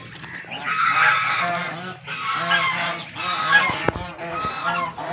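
A flock of white domestic geese with goslings honking over and over, several birds' calls overlapping with hardly a pause. These are agitated geese, ready to attack anyone who comes close to their goslings.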